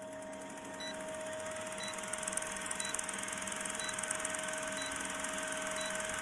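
Old-film countdown leader sound effect: a steady hum with film hiss and crackle, and a short faint beep about once a second as the numbers count down.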